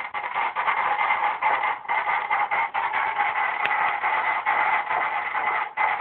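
Ultrasound machine's pulsed-wave Doppler audio of a fetal heartbeat: a fast, regular whooshing pulse.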